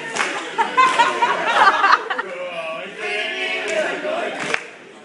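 A group of teenagers singing together with hand claps, the claps sharp and irregular; the voices die away near the end.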